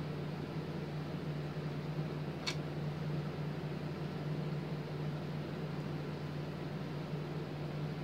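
Steady low hum with a light hiss, like a fan or other room machinery running, and one small click about two and a half seconds in.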